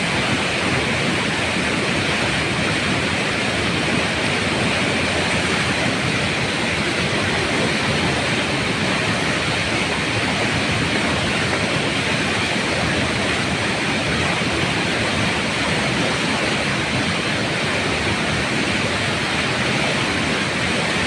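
Floodwater rushing, a loud, steady, unbroken rush of moving water.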